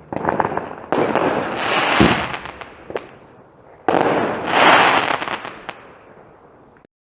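Consumer fireworks going off in volleys of bangs and crackling: a fresh volley starts suddenly about a second in and another near four seconds, each swelling and then fading. The sound cuts off suddenly near the end.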